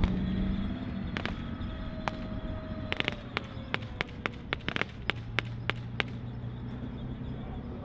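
Gunfire in a mock battle, most likely blank rounds: about fifteen sharp, irregular shots, some in quick pairs and short runs, starting about a second in. Under them runs the low rumble of armoured-vehicle engines.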